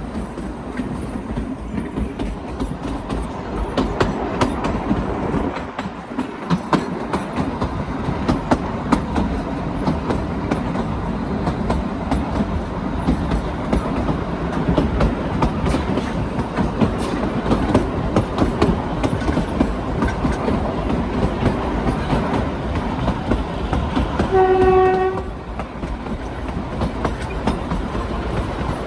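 Narrow-gauge Kalka–Shimla toy train running along the track, wheels clicking steadily over the rail joints, with a single horn blast of about a second near the end.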